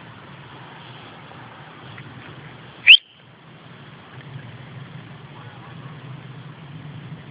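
One short, loud whistle rising in pitch, about three seconds in: a recall whistle calling a dog back.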